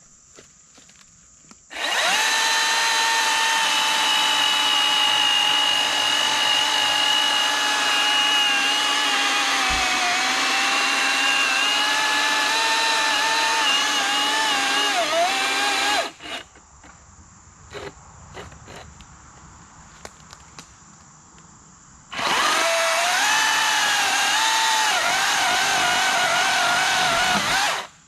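Milwaukee M18 Fuel 14-inch top-handle battery chainsaw running in two long bursts, about fourteen seconds and then about five seconds, cutting through a fallen tree. It gives a steady electric whine whose pitch sags now and then as the chain bogs in the wood.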